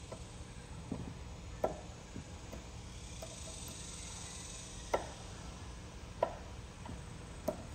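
Snap ring pliers clicking and tapping against the steel shaft and snap ring as they are fitted, about five light clicks spaced a second or more apart, over a steady low hum.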